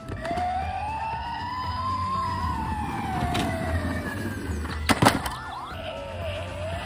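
A siren wailing: one slow rise and fall in pitch, with two sharp clicks about five seconds in.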